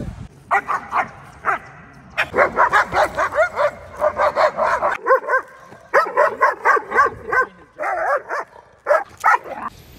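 A dog barking in several fast runs of short, sharp barks, about three or four a second, with brief breaks between the runs.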